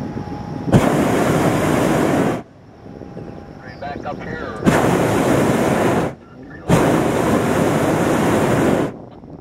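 Hot air balloon's propane burner firing in three loud blasts of about one and a half to two seconds each, each starting and cutting off abruptly. Faint voices can be heard between the first two blasts.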